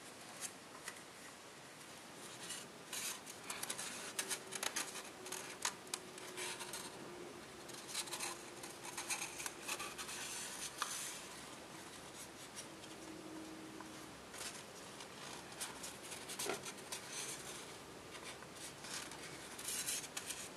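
A sheet of copper tissue foil rustling and crinkling as hands fold and crease it, with many small sharp crackles as folds are pressed.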